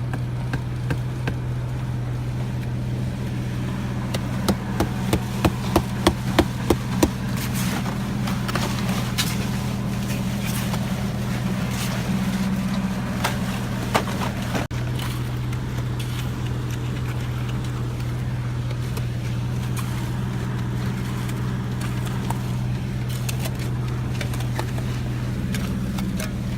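An engine running steadily at a constant pitch, with a quick run of about eight sharp knocks, each a little louder, starting about four seconds in, and a few scattered clicks after.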